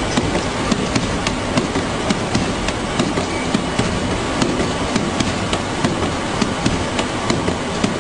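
Parcel-sorting conveyor machinery running with a steady rumbling hiss and a regular clatter of sharp ticks, about two or three a second, while a cardboard box tumbles in place on the moving belt.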